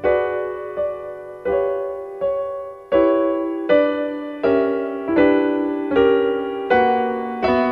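Slow piano background music: a chord struck about every three-quarters of a second, each left to ring and fade before the next.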